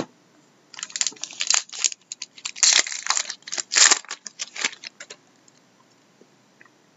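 Sharp click, then a trading-card pack wrapper being torn open and crinkled by hand: a few seconds of crackling tears that stop about two-thirds of the way through.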